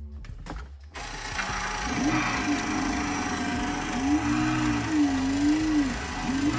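1:4 scale Porsche flat-six engine model running with its engine sound, starting about a second in after a few clicks and revving up and down several times over a steady mechanical whir.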